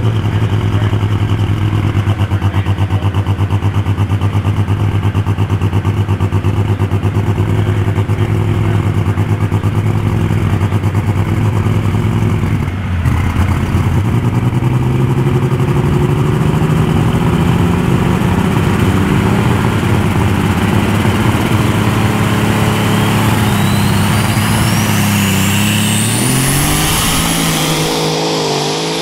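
Unlimited super stock pulling tractor engine running with a steady, pulsing note; after the middle its pitch creeps up, and over the last few seconds it rises sharply while a high whine climbs steeply in pitch.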